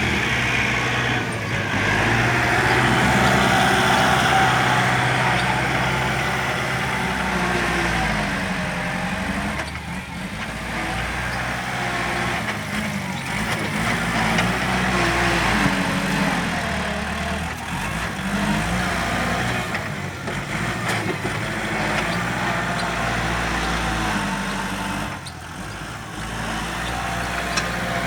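Diesel engine of heavy earthmoving machinery running under load, its pitch rising and falling as it works.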